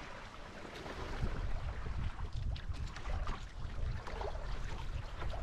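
Wind buffeting the microphone in uneven gusts, with light splashing of water.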